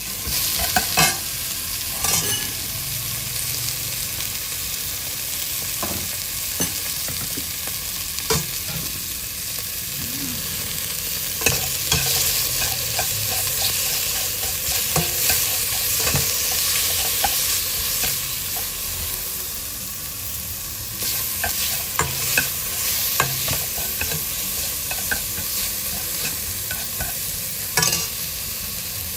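Food sizzling in a hot pan while it is stirred, with a steady frying hiss and a utensil now and then knocking and scraping against the pan.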